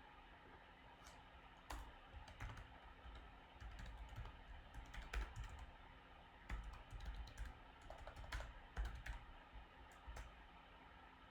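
Typing on a computer keyboard: faint, irregular clusters of keystrokes over a low steady hum.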